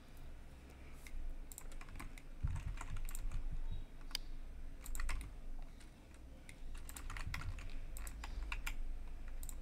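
Computer keyboard keys and mouse buttons clicking in scattered short clusters as modeling shortcuts are entered, over a low steady hum.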